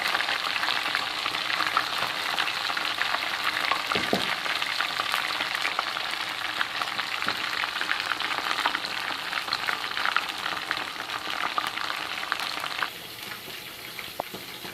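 Chicken pieces frying in hot oil in a pan, with a steady sizzle dense with small crackles and pops. There is a single soft thump about four seconds in, and the sizzle drops to a quieter crackle near the end.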